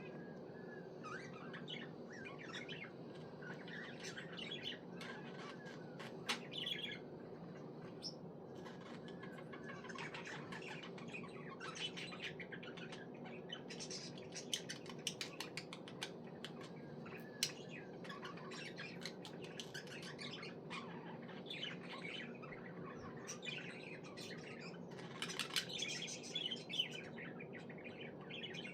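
Pet budgerigar chirping and warbling in quick, busy runs of short chirps and occasional squawks, over a steady low background hum.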